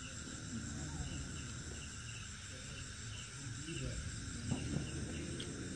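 Crickets chirping in a steady chorus with a regular high pulse, over faint distant voices.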